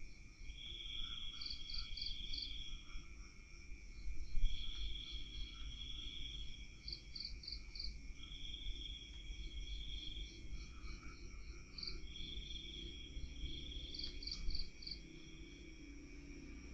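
Night insects calling together, crickets among them: several steady high trills, a buzzing trill of about two seconds that repeats every few seconds, and short groups of quick chirps above it. A faint low rumble lies underneath.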